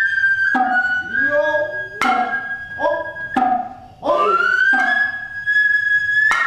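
Noh hayashi ensemble playing: the nohkan bamboo flute holds a long high note over sharp strokes of the kotsuzumi and otsuzumi hand drums, each stroke paired with the drummers' short shouted kakegoe calls. The flute breaks off briefly about four seconds in and comes back in with an upward slide.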